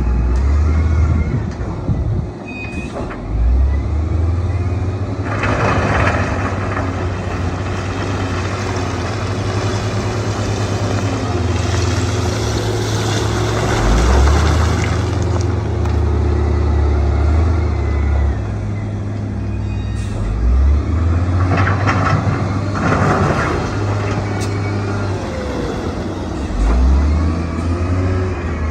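Heavy diesel earthmoving machinery, bulldozer and dump truck engines, running steadily with a deep drone, broken three times by spells of loud rushing noise.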